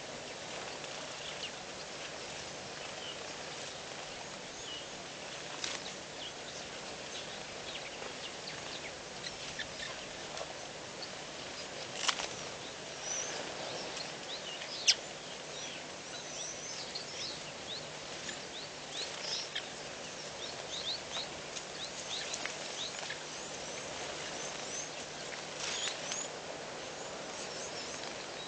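Outdoor bush ambience: steady background noise with many short, high chirps of small birds, and two sharp clicks, about twelve and fifteen seconds in.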